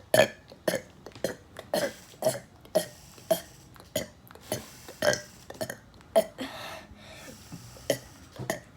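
A rapid string of short burps from one person, about two a second, with a brief breathy gap a little past the middle.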